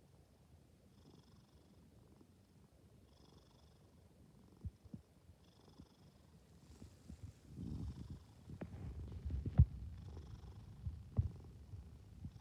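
A sleeping cat snoring softly: a faint, wheezy whistle with each breath, about one every two seconds. In the second half a low rumble joins it, with a few soft knocks.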